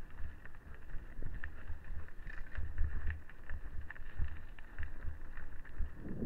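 Mountain bike descending a dirt singletrack: tyres rumbling over the bumpy trail with frequent irregular knocks and rattles from the bike, and wind buffeting the microphone.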